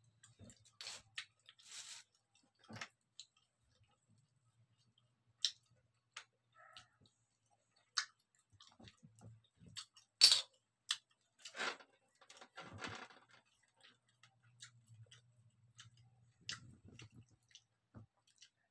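Close-up eating sounds: scattered sharp clicks of wooden chopsticks and fingers against scallop shells, with chewing in between. The loudest click comes about ten seconds in.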